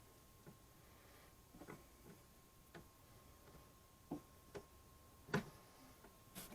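Near silence broken by scattered light clicks and knocks, about eight of them, from small parts and hardware being handled; the loudest comes about five seconds in. A faint steady high tone runs underneath.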